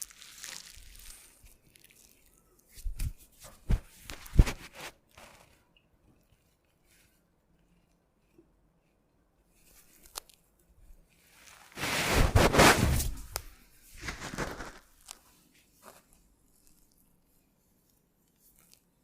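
Hands-on massage handling noise: irregular rubbing and rustling of hands on skin and cloth, with a few sharp clicks or taps around four seconds in and a loud, longer rub about two-thirds of the way through.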